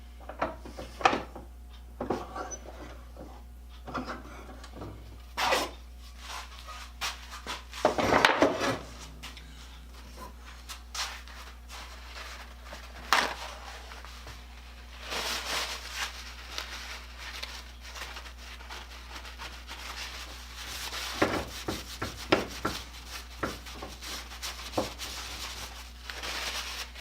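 Parts of a hand-crank bench grinder being handled and worked apart: scattered clicks and knocks of small parts set down and moved, with a few longer stretches of rubbing and scraping.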